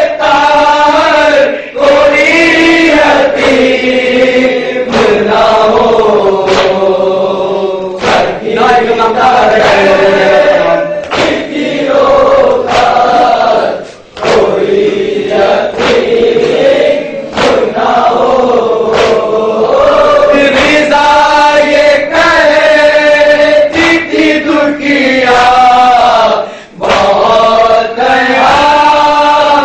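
Male voices chanting a nauha, a Shia mourning lament, in a slow sung recitation, with sharp slaps now and then.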